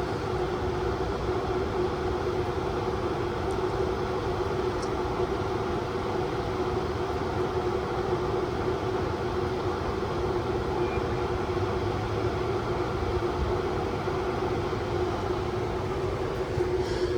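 Hampton Bay Hugger ceiling fan running, a steady hum over a constant rumble of background noise.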